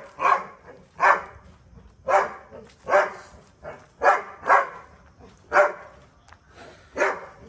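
Dog barking repeatedly, about eight barks spaced roughly a second apart.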